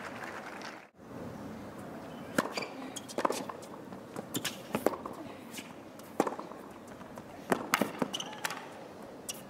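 Tennis rally on a hard court: a string of sharp racket strikes and ball bounces, roughly every half second to a second, over a low crowd background.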